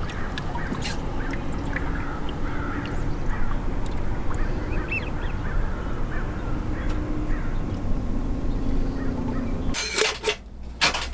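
Boat motor running at trolling speed, a steady low hum with water and wind noise. About ten seconds in it gives way to a few sharp clicks and knocks.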